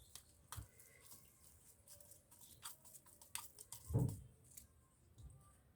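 Faint kitchen handling noises: scattered light clicks and taps of utensils, with one soft thump about four seconds in.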